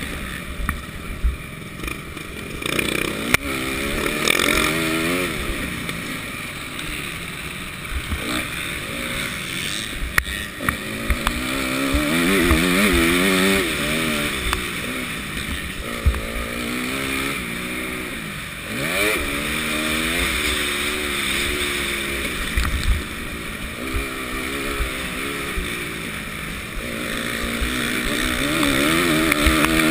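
Motocross bike engine revving hard and falling back over and over as it is ridden at race pace through the gears and corners, heard from a camera on the rider's helmet. Wind buffets the microphone, and there are occasional knocks from the bumps.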